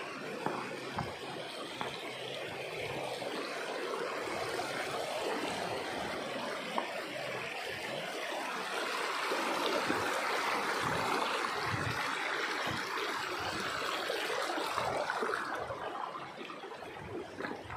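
Shallow river trickling and babbling over rocks and stones, a steady water noise that swells somewhat around the middle and eases toward the end.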